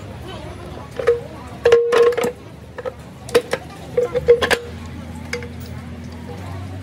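Metal clinking and knocking, several strikes ringing on the same tone, with a loud cluster of knocks about two seconds in; a steady low machine hum sets in about two-thirds of the way through.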